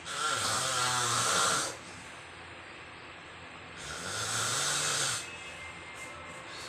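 A person snoring loudly: two long snores, each lasting over a second, one at the start and another about four seconds in.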